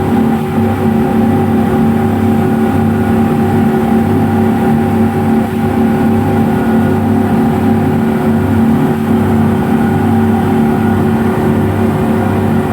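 Speedboat's twin 250-horsepower engines running steadily at a constant speed, a loud even drone with a low throb that swells and fades about once a second.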